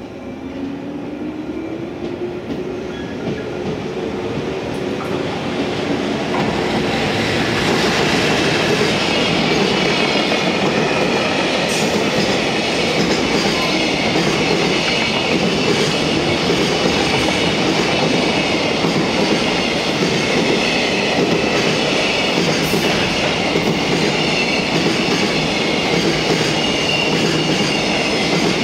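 A JR Freight EF210 electric locomotive hauling a container freight train approaches with a rising tone and passes. A long string of container wagons follows, rolling by close to the microphone with a steady, loud noise of steel wheels on rail. The sound builds over the first several seconds and then holds level, with a few sharp clicks.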